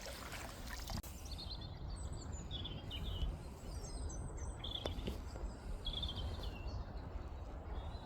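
Small birds chirping in short, quick high phrases, several in a row, over a steady low rumble.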